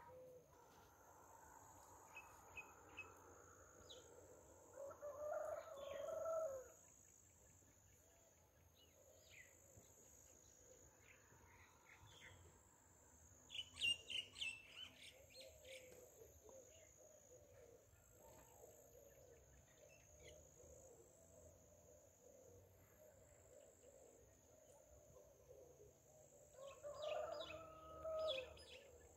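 A rooster crowing twice, once about five seconds in and again near the end, with small birds chirping in between and a steady high insect trill throughout.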